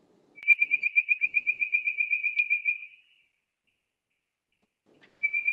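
Recorded call of a bird-voiced treefrog (Hyla avivoca): a rapid, bird-like run of repeated ringing whistles, about eight notes a second, lasting over two seconds, then after a pause a second run beginning near the end.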